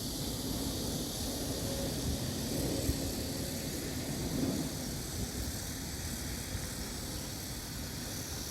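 Outdoor ambience: a low, distant engine rumble that swells slightly now and then, under a steady high hiss.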